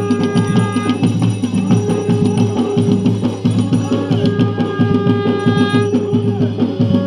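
Garhwali jagar music played loud: fast, even drumming with long held notes over it.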